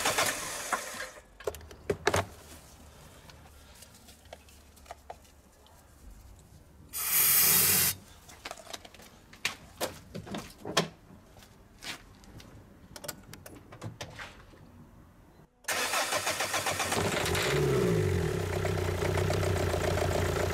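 Renault Clio II 1.5 dCi four-cylinder diesel engine turned over on the starter, stopping about a second in. After a quiet stretch with scattered clicks and a brief loud hiss, the starter cranks it again near the end; it catches after about two seconds and settles into idle. The engine is being run for an injector leak-off (return flow) test.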